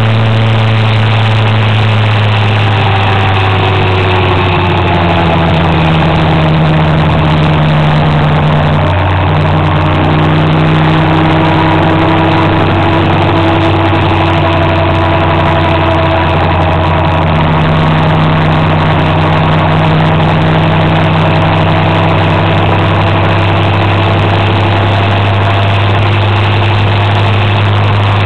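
Motor scooter engine running steadily at cruising speed, its pitch shifting a little with speed, dropping about three seconds in and changing again near nine seconds, over a steady rush of wind and road noise.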